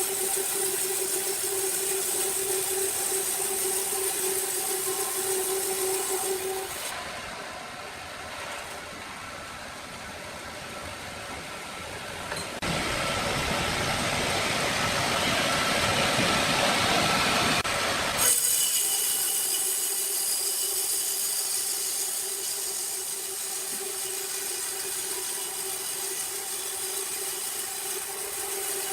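Sawmill machinery running with a steady whining hum, which gives way to a quieter stretch and then to a loud, rough sawing noise for about five seconds before the steady hum returns; the changes are sudden.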